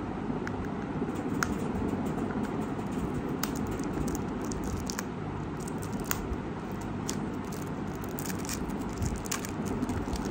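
Plastic wrap being picked and peeled off a small cosmetics box by hand: scattered small crackles and clicks over a steady low background hum.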